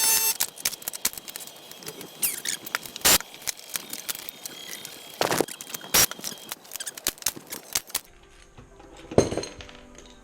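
Blind (pop) rivets being set in the aluminium flaperon skin: a run of small clicks and rattles with several sharp snaps of rivet stems breaking, the loudest about three, five and six seconds in. The last two seconds are quieter.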